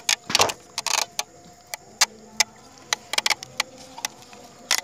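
Plastic wall clock being handled and gripped by its rim: irregular sharp clicks and knocks of plastic with brief rustles, not a steady ticking.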